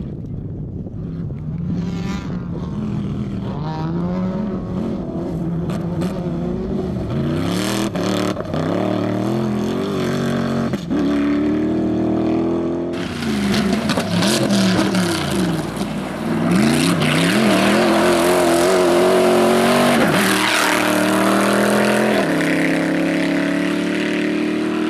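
Rally car engine revving hard through the gears, its pitch climbing and dropping again and again with each shift. About halfway through a broad hiss comes in and stays, and the sound gets louder.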